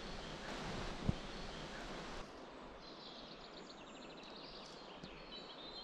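Riding noise of a bicycle on a forest track: a steady rush with a single knock about a second in. A little over two seconds in this gives way to a quiet wood with birds chirping.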